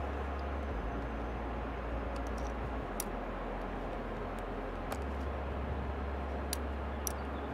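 Steady rushing outdoor noise with a low rumble, broken by a few sharp clicks.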